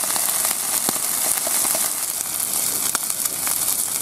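Shrimp heads frying in butter in a pan: a steady sizzle with scattered small pops and crackles as they are taken toward crispy.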